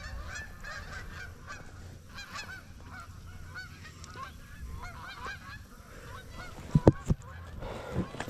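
A flock of geese honking, many calls overlapping continuously, with two or three sharp loud thumps near the end.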